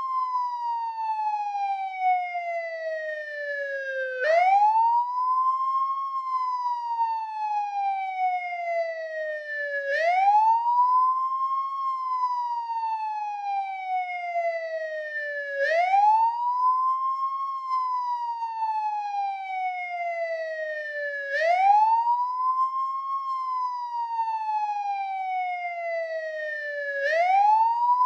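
American police siren in wail mode: a single tone that sweeps up quickly over about a second and a half, then slides slowly back down over about four seconds, the cycle repeating steadily about every six seconds.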